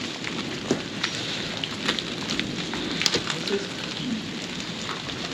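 Steady rain falling, with many scattered sharp close drop-ticks and crackles.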